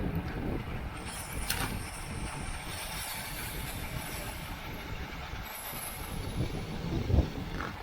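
Wind rushing over the microphone and road noise from bicycles riding at racing speed, with a low thump about seven seconds in.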